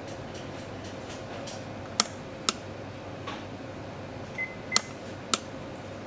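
Relays on a breadboard test circuit clicking as they switch, in two pairs of sharp clicks about half a second apart, over a faint steady hum.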